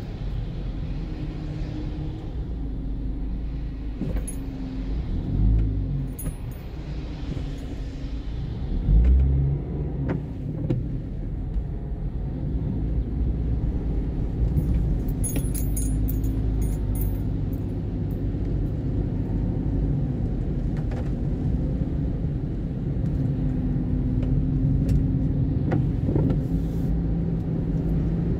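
Inside a car on a wet road: steady engine and tyre rumble that grows louder as the car pulls away and gathers speed, with a couple of low bumps early on and a brief light jingling about halfway through.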